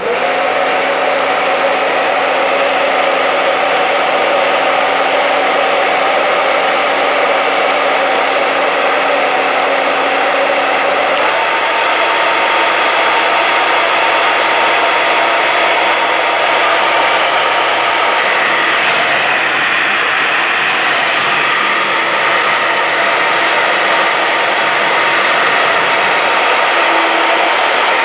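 A 220 V electric hair dryer switched on and running steadily, a loud rush of blown air over the hum and whine of its fan motor. Its tone changes about eleven seconds in.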